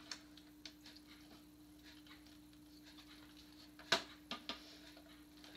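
Faint clicks and knocks of the spider prop's leg pieces being handled and fitted together, the sharpest about four seconds in with two smaller ones just after, over a faint steady hum.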